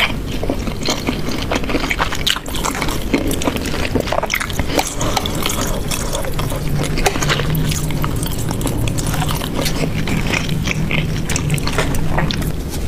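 A metal knife and a wooden fork working through meat and rice in a thick, saucy stew: wet squelching and sloshing of sauce with many small clicks and scrapes of the utensils.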